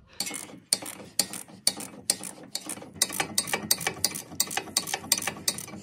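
Socket ratchet clicking in a steady run, about four clicks a second, as it backs off a seized sway bar link's top nut, the stud held from spinning by a T40 Torx bit.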